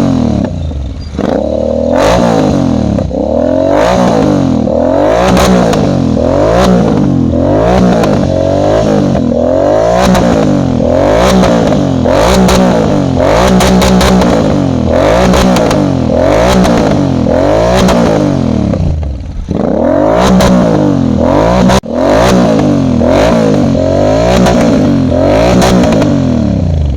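Royal Enfield Continental GT 650's 648 cc parallel-twin engine through an SC-Project aftermarket exhaust, loud, its pitch rising and falling over and over, a bit more than once a second, as the throttle opens and closes while riding. The sound dips briefly past the middle and cuts out for an instant a few seconds later.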